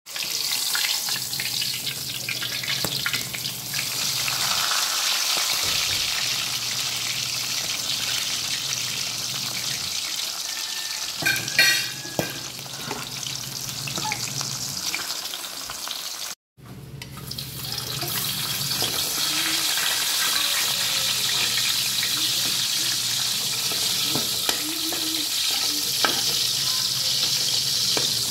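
Steady sizzle of food frying in hot oil in a wok, milkfish (bangus) at first, with a metal spatula scraping against the pan now and then. The sizzle cuts out for an instant about halfway through.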